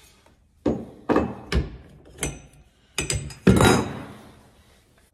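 Metal knocks and clanks as a lever-type pipe bender is opened and a freshly bent 15 mm copper pipe is taken out and set down on wooden floorboards. There are about six sharp knocks, the loudest about three and a half seconds in, with a short ring after it.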